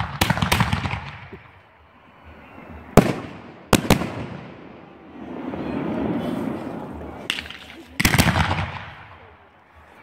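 Aerial firework shells bursting overhead. A crackle of reports comes at the start, then single sharp bangs about three and four seconds in, and a rapid cluster of cracking bangs about eight seconds in, with a rumbling echo between them.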